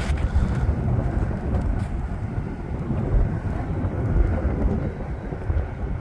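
Gusty low rumble of wind buffeting the microphone, over the faint sound of a distant approaching diesel freight train.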